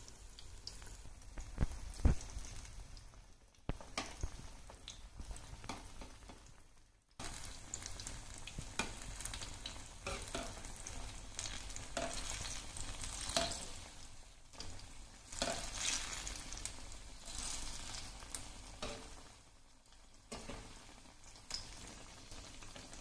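Banana-and-wheat-flour batter buns sizzling and crackling as they deep-fry in hot oil, with a wire skimmer stirring and turning them as they fry to golden brown.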